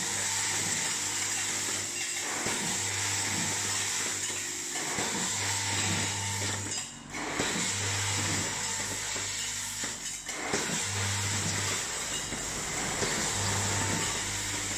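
Vibratory bowl feeders running: small metal fittings and plastic parts rattling and chattering as they shake up the spiral tracks of stainless steel bowls. A low electric hum cuts in and out, about a second at a time every two to three seconds.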